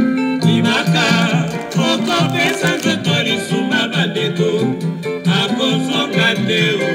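Music with singing over plucked guitar.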